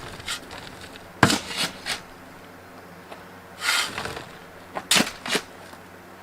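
A few sharp knocks and clacks, with a short scraping rustle in the middle.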